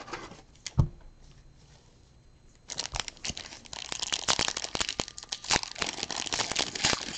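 A 2021 Panini Rookies & Stars retail card pack's foil wrapper being crinkled and torn open by hand, a dense crackling that starts about two and a half seconds in. Before it there is a single soft knock about a second in.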